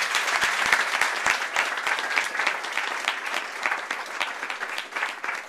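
Room of guests applauding, many hands clapping at once, loud at first and tapering off toward the end.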